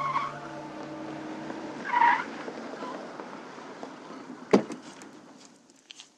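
The end of the theme music fades out. Then come drama sound effects: two short squeal-like sounds, near the start and about two seconds in, then a single loud thud about four and a half seconds in, followed by a few faint knocks.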